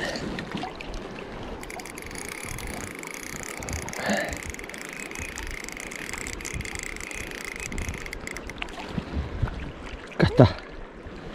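Running river water, a steady rush.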